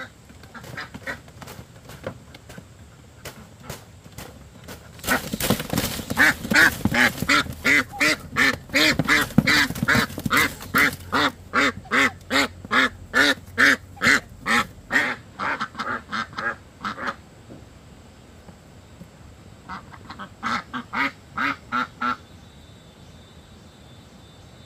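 Ducks quacking in a long run of loud, evenly spaced quacks, about two or three a second, lasting some ten seconds, then a shorter run of quacks a few seconds later.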